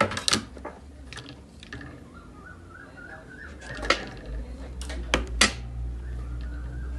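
A few sharp clicks and knocks, with a low hum coming up about halfway through.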